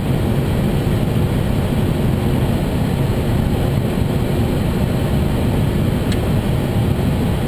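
Steady flight-deck noise of an airliner on approach: airflow over the nose and engine noise, heard from inside the cockpit, heaviest in the low range and unchanging.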